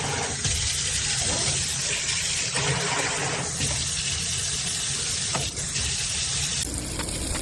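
Water running steadily from a pull-down kitchen faucet into a sink, its sound shifting a few times, then cutting off abruptly near the end.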